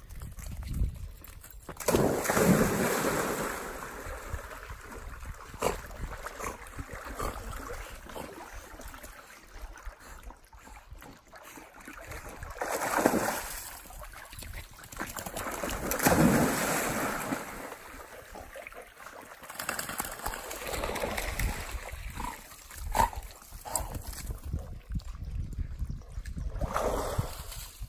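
Dogs splashing as they jump into and wade through a shallow stream after a stick, in several loud bursts of splashing, with flowing stream water in between.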